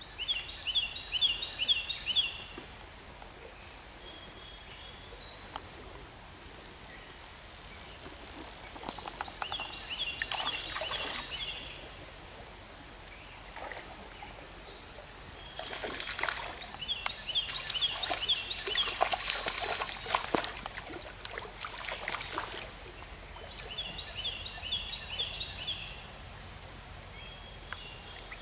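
Small trout stream running, with water splashing in the middle of the stretch while a hooked trout is played. A songbird sings a quick phrase of repeated chirps four times, loudest at the start.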